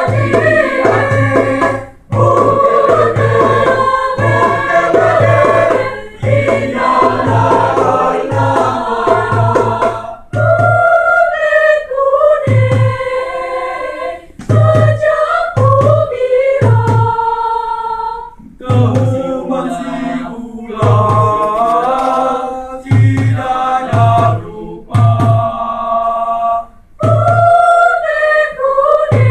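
Choir singing in harmony over a low thumping beat, about one and a half to two thumps a second at first. In the second half the thumps grow sparser and the singing breaks into short held chords with brief pauses between them.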